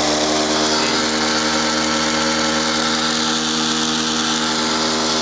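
Keystone K-101Z film projector running in reverse: its motor gives a steady hum with a whirring hiss.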